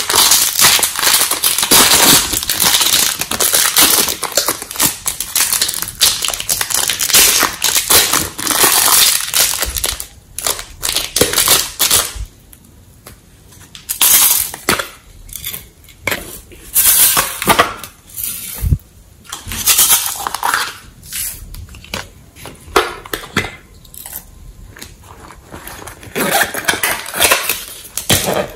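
Clear plastic wrappers crinkling and crackling as clay is squeezed out of them, with plastic containers of glitter being handled and tipped. The crackling is dense and continuous for about the first ten seconds, then comes in shorter separate bursts.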